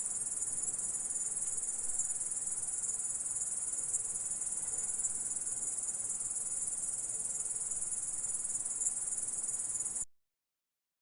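Grasshopper sound effect: a steady, high-pitched insect buzz with no pauses, cutting off suddenly about ten seconds in.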